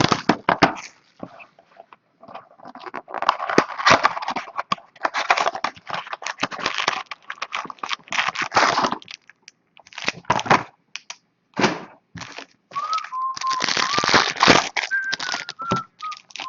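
Baseball card pack wrappers being torn open and crinkled, and cards being handled, in irregular bursts with short pauses. A few short, thin whistle-like tones come near the end.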